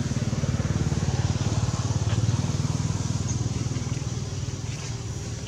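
A small engine, like a motorcycle's, running steadily with a low, fast, even pulse; it is loudest around the middle and eases off slightly towards the end.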